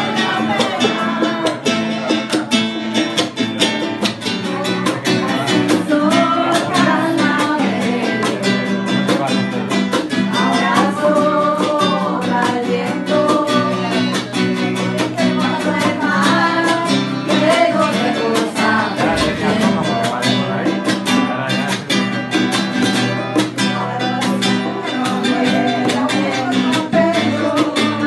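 Acoustic guitar strummed steadily, with women singing a song over it.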